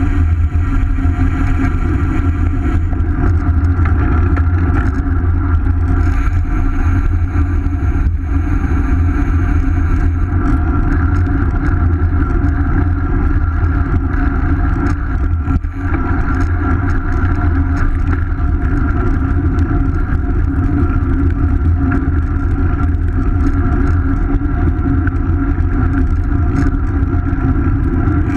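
Steady wind rush over a bike-mounted action camera's microphone, mixed with tyre and road noise from the bicycle rolling along; loud and unbroken.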